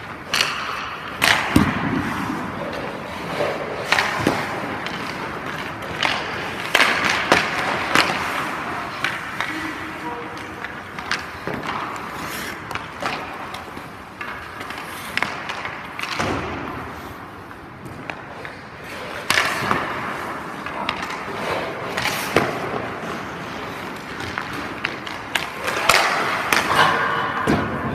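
Hockey skates scraping and carving on the ice, with repeated sharp cracks of sticks shooting pucks and pucks striking the goalie's pads and the boards.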